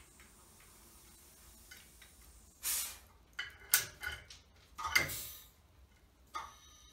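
Bal-Trol pneumatic balancer and its hook working: two short hisses of air, each about half a second, with sharp metallic clicks in between as the hook latches onto the weight bar.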